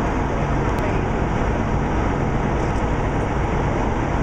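Steady low rumble of a moving tour bus, engine and road noise heard from inside the cabin.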